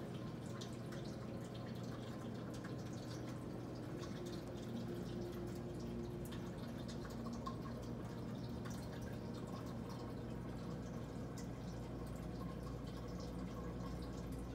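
Water dripping and trickling steadily inside a glass reptile terrarium, many small irregular drips over a constant low hum.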